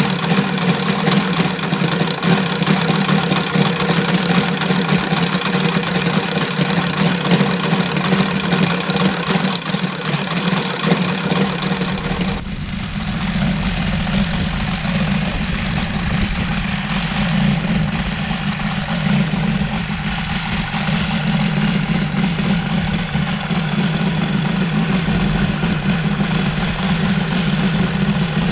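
OS FR5-300 five-cylinder radial model engine running steadily. About twelve seconds in, the sound changes abruptly, losing its bright top and gaining more bass.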